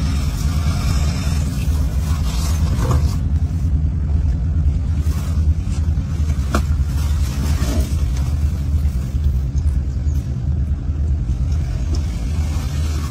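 A steady low rumble, with a few faint, sharp clicks or snaps about three, six and a half and eight seconds in, as a Komodo dragon tears at a dead goat's carcass.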